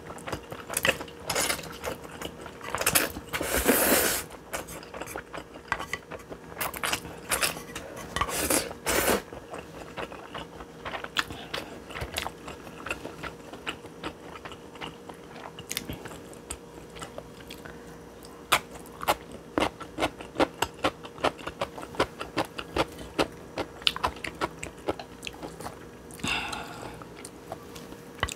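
Close-miked eating of stir-fried instant noodles: chewing with many small wet mouth clicks, and a few longer, louder slurping bursts.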